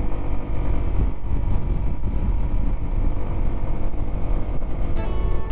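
Motorcycle running at road speed, heard through a helmet-mounted microphone as a steady low rumble. Acoustic guitar music starts near the end.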